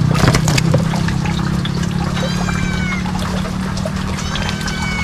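Water pouring and trickling over a steady low hum, with two drawn-out, slightly falling animal calls, one about two seconds in and another near the end.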